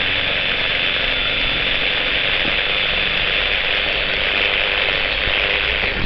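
Steady city street noise while walking along a busy sidewalk at night: an even, unbroken hiss with no distinct events standing out.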